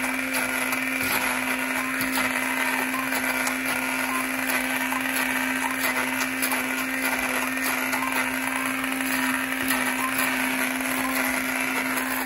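White hand-held immersion blender running steadily in a bowl, pureeing boiled yautía with beef broth, a continuous motor hum with the blade churning through the thick mash.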